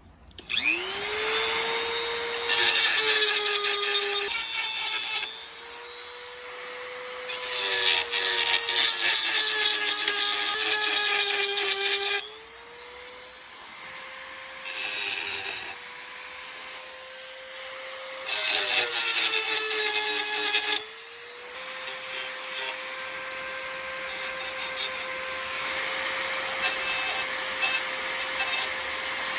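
Electric power tool motor spinning up, then running steadily. Three times it is pressed into work for a few seconds, giving a loud rough grinding or sanding noise while the motor's pitch sags under the load; it then runs on more evenly.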